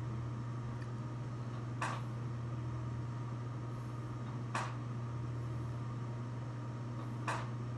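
A steady low hum with three short clicks, evenly spaced about every two and three-quarter seconds.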